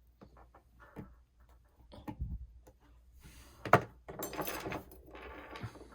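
Small clicks and taps from tools and phone parts being handled on a work surface. A single sharp click about three and a half seconds in is the loudest sound, followed by a second or so of scraping rustle.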